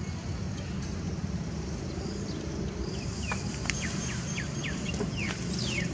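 Small birds chirping, a run of quick downward-sweeping chirps starting about two seconds in and coming thicker near the end, over a steady low rumble.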